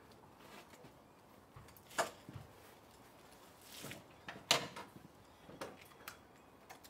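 Handling noise as a rider in a leather jacket and gloves climbs onto a parked motorcycle: a few soft knocks and rustles, the sharpest about two seconds in and about four and a half seconds in. The engine is not running.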